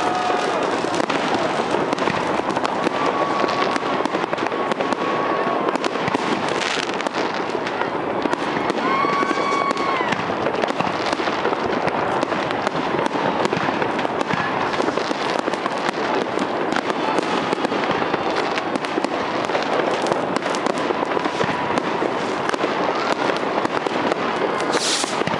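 A fireworks display banging and crackling without a break, shells bursting one over another, with a short sharp hiss near the end.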